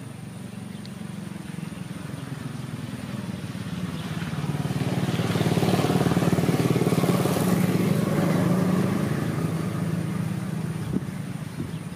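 A motor vehicle passing by: its engine hum grows louder, peaks in the middle and fades away again.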